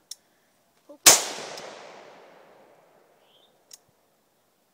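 A single shot from an AR-15 style carbine about a second in, a sharp crack followed by a long fading echo that dies away over about two seconds.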